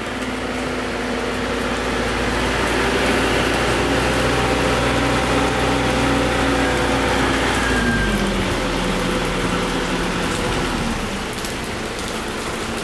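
Rain falling steadily, with a vehicle engine running at a raised speed under it that drops to a lower speed about eight seconds in.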